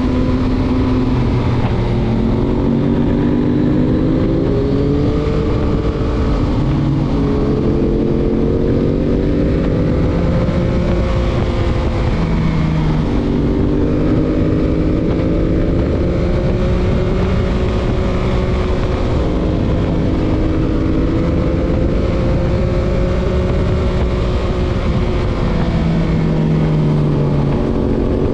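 Stock 2021 Yamaha MT-09's 890 cc inline-three engine running under way. Its revs rise and fall again and again as the throttle is opened and closed, over steady wind and road noise.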